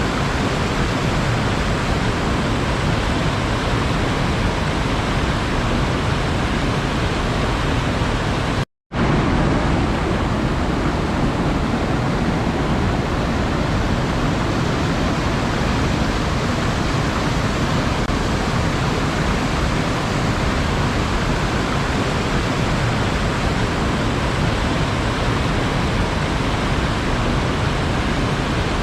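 Sea surf as a steady, even rush of water noise, with no separate wave breaks standing out. The sound drops out to silence for a split second about nine seconds in.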